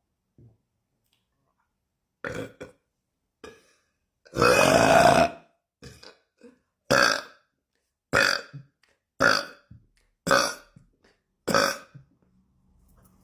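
A woman burping: a short burp about two seconds in, then one long, loud burp lasting about a second, followed by a run of five short burps about a second apart.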